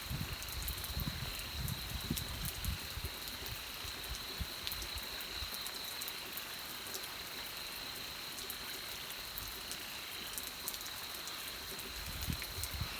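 Steady rain with many scattered drop ticks, over a steady high-pitched tone and some low rumbling near the start and end.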